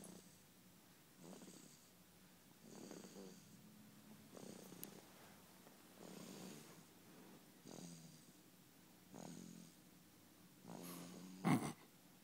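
Soft, rhythmic snoring of someone asleep in a nap, one snore about every second and a half, with a sudden louder snort near the end.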